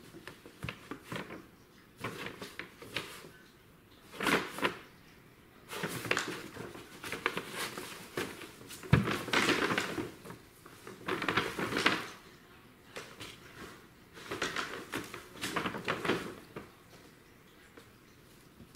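Stiff brown paper crinkling and rustling in irregular bursts as a cat scrambles about inside a paper tunnel, with a single thump about nine seconds in.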